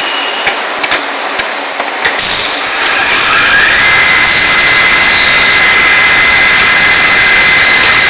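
Turret lathe running loudly while machining, with a few sharp clicks in the first two seconds, then a steady high whine that glides up about three and a half seconds in and holds.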